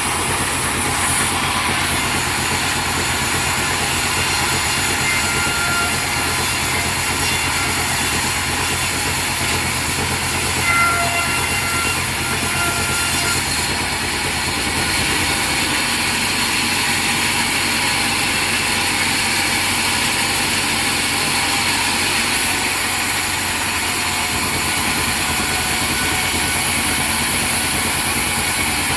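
Sawmill machinery running steadily: a continuous low engine hum under a dense mechanical hiss, with a slight change in the hum about halfway through.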